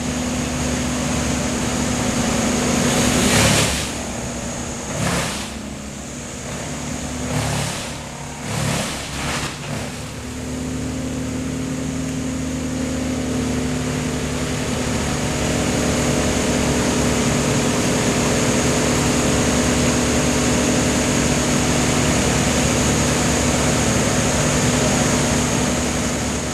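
Wood chipper's engine running steadily, with four or five short loud grinding surges in the first ten seconds as branches are fed through and chipped, then running on evenly.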